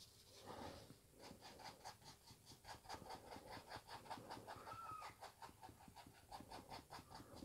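Faint quick scratching of a medium flat brush dabbing and scrubbing thin oil paint onto the canvas, an even run of about five strokes a second.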